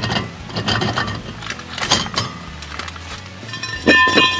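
Light metal clinks as a rusty front brake rotor comes off a Ford F250's hub. Near the end, the cast-iron rotor lands on the concrete with a sharp clank and rings with a clear, steady metallic tone for about a second.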